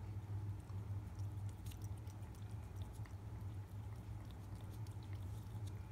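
A cat licking lickable paste treat from a squeeze tube: faint, small, irregular wet licking clicks over a low steady hum.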